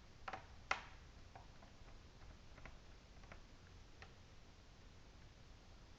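Faint, sparse clicks of a small screw and screwdriver being worked into a laptop's motherboard and chassis. The clearest click comes about two-thirds of a second in, followed by a few weaker ticks spaced a second or so apart.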